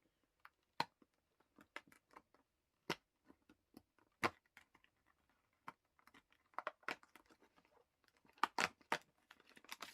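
Cardboard and paper handling: the perforated door of an advent calendar box being torn open and the packaging crinkled, heard as scattered sharp crackles and clicks.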